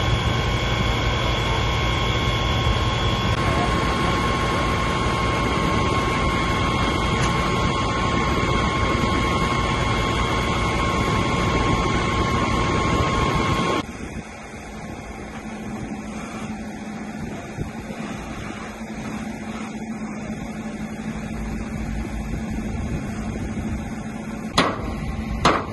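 Fire engine running, a loud steady mechanical drone with a high whine over it. About 14 seconds in it drops abruptly to a quieter steady hum, with a couple of sharp clicks near the end.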